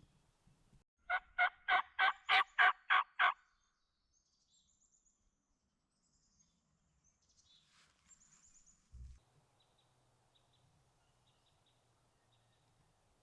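Turkey yelping: a run of eight evenly spaced yelps over about two seconds, the loudest sound here. Faint high bird chirps follow, with a soft thump about nine seconds in.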